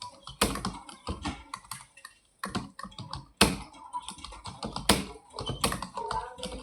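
Fast typing on a computer keyboard: a dense, uneven run of key clicks with a few much louder strokes, and a brief pause about two seconds in.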